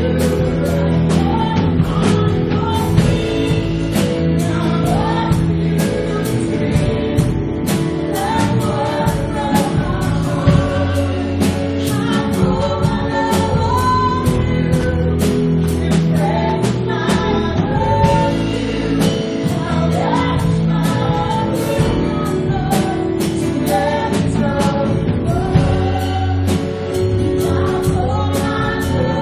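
Live worship band playing a gospel song: guitars and drum kit keeping a steady beat under a low bass line, with singing voices leading the melody.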